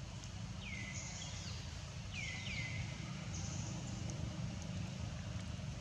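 Outdoor ambience: a steady low rumble under an on-and-off faint high hiss, with three short high animal chirps that drop in pitch, one about half a second in and two in quick succession around two seconds in.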